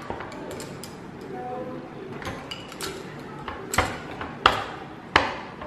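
Wooden rolling pin rolling dough out on a wooden chopping board: a low rolling rumble, then a few sharp wooden knocks in the second half as the pin strikes the board.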